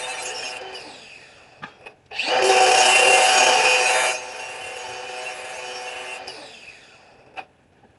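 Electric grinder sharpening the edge of a forged chisel hot cut: the motor runs with a steady whine, there is a loud harsh grinding stretch of about two seconds as the steel is pressed to it, then it runs on and winds down with falling pitch near the end.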